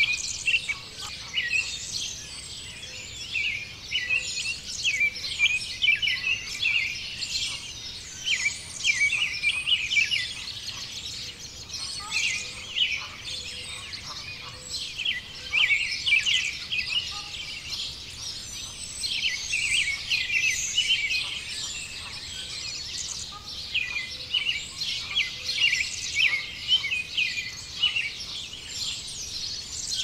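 Spring dawn chorus: many songbirds chirping and singing over one another, dense and unbroken.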